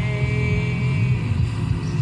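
Steady low road and engine rumble inside a car cabin, with music and a long held sung note that fades out a little over a second in.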